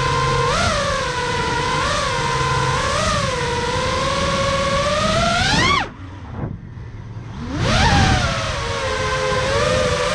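FPV racing quadcopter's brushless motors whining at a steady pitch with small throttle blips. About five and a half seconds in the whine rises sharply, then cuts off suddenly as the throttle is chopped. After about a second and a half it climbs back to its earlier pitch.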